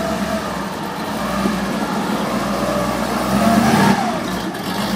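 A 1930s Alfa Romeo roadster's engine running as the car rolls slowly in. The engine swells briefly a little past three seconds in, then drops off sharply at about four seconds.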